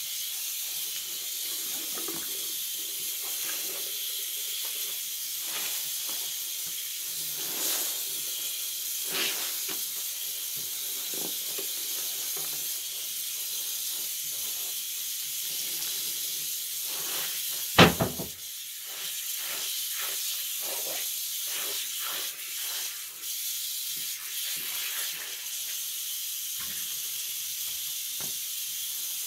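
Steady high hiss, with scattered faint clicks and one sharp, loud click about eighteen seconds in.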